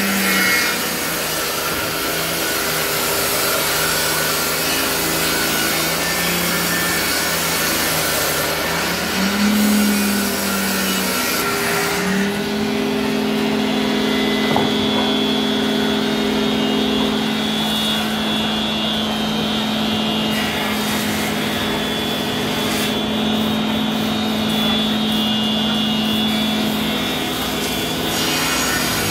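Hand saw cutting through a wooden board, the blade rasping back and forth through the wood. A steady droning hum runs underneath, stepping up in pitch about twelve seconds in.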